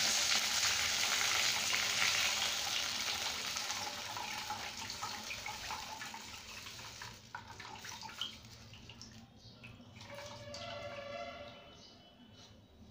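Tamarind water poured from a steel pot into a hot kadai of tempered mustard seeds and curry leaves, hissing and splashing as it meets the hot oil. The sizzle dies away over several seconds into a thin trickle with a few light clicks.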